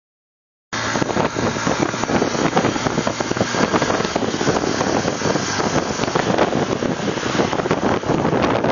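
Wind buffeting the microphone on a moving motorcycle, a steady rush of air and road noise that starts suddenly under a second in.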